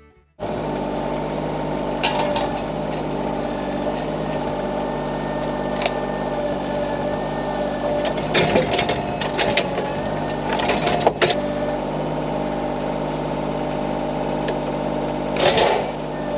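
Diesel engine of a heavy machine running steadily at a constant speed, with a few short metallic clanks.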